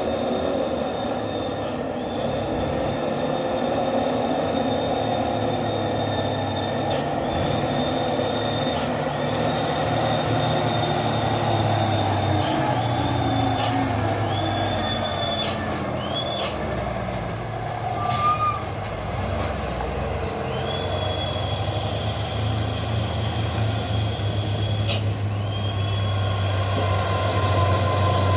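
Dump truck engine running low and steady on a steep downhill, with high-pitched brake squeals that start and stop every second or two, pausing for a few seconds in the middle.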